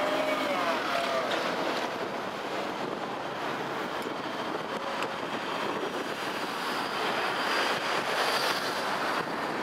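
LNER A4 Pacific steam locomotive Bittern working slowly tender-first, giving a steady rushing hiss of steam and exhaust. A brief falling squeal dies away in the first second.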